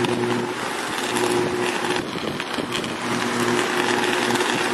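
High-voltage electric arc at a pole-top insulator on a distribution line. It gives a low electrical buzz that comes and goes in spells of about a second, three times, over a constant hiss.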